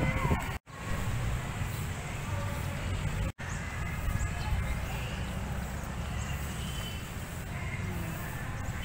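Outdoor city ambience: a steady low rumble with faint distant voices, broken twice by a split-second silence.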